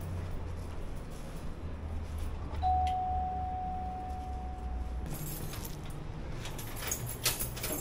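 A doorbell sounding one steady, unwavering tone for about two and a half seconds. After it stops, a plastic delivery bag rustles and crinkles with light rattles as it is hung on the door handle.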